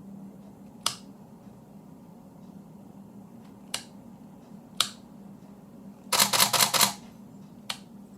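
Canon 5D Mark III shutter and mirror firing: four single shots spaced a second or more apart, and a rapid continuous burst of several frames at about six seconds in, as the repaired camera is test-fired. A faint steady low hum runs underneath.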